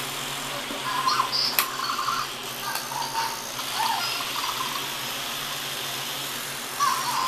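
Zhu Zhu Pets robotic toy hamsters rolling over paper, their small motors whirring under short electronic squeaks and chirps. The chirps come every second or so, pause for a stretch in the second half, and pick up again near the end.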